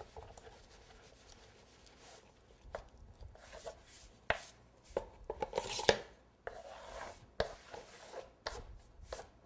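Scattered light knocks, taps and brief rustling as the covered cake board and its pole support are handled and adjusted, with the loudest cluster about five to six seconds in.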